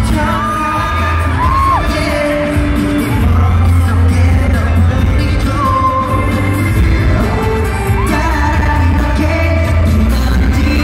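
K-pop dance track with a heavy bass beat and male group vocals, played loud over an arena sound system during a live stage performance.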